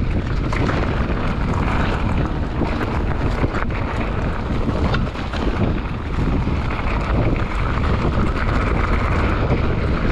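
Wind buffeting an action camera's microphone as a mountain bike descends a dirt singletrack, with the rumble of tyres on the trail and a few sharp knocks from the bike over bumps.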